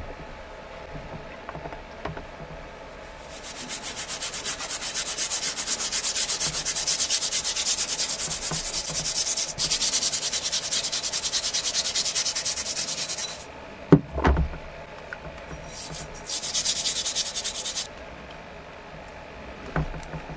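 Steel wool scrubbing a rusty steel axe head wet with soapy water, in quick back-and-forth strokes. One long spell of scrubbing is followed by a single knock, then a shorter second spell.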